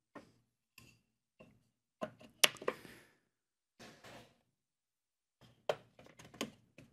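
Wooden box parts knocking and clicking together as the box-jointed sides and bottom are fitted by hand. There is a cluster of knocks about two and a half seconds in and a run of lighter taps near the end.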